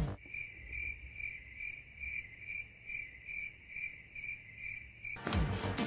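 Cricket-chirp sound effect: one high chirp repeated evenly about two and a half times a second, the stock 'awkward silence' gag, in a gap where the music has dropped out. Music comes back near the end.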